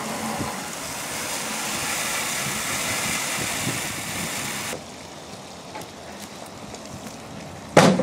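Water from a garden hose hissing as it sprays into a hot, smoking microwave burned out by fireworks; the hiss stops suddenly a little under five seconds in. Near the end, a single loud thump as the microwave is kicked over.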